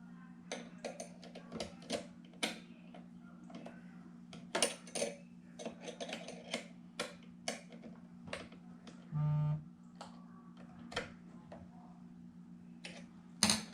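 Irregular clicks and taps of a screwdriver working screws and plastic parts while the stand is fastened back onto an all-in-one computer, over a steady low hum. A short pitched tone sounds once, about nine seconds in.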